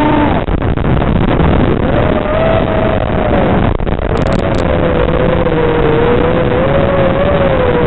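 Racing quadcopter's brushless motors (KingKong 2205 2300KV) and two-blade props whining through heavy rushing noise. The whine swells and dips in pitch near the start, climbs again about two seconds in, then holds with a slight waver as the throttle changes.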